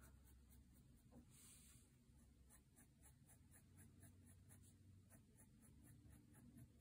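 Faint scratching of a Sharpie marker on drawing paper: quick, evenly repeated short strokes laying down closely spaced hatching lines.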